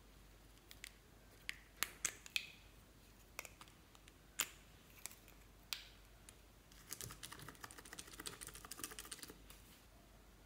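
Sharp hard-plastic clicks and snaps as small plastic lipstick tubes are handled and their caps pulled off, a dozen or so separate clicks, then a run of rapid fine crackling clicks lasting about two and a half seconds.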